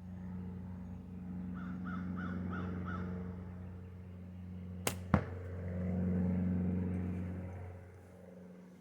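A gunshot at a target: two sharp cracks about a quarter second apart near the middle, the second the louder, over a steady low hum. Earlier a bird gives five quick calls.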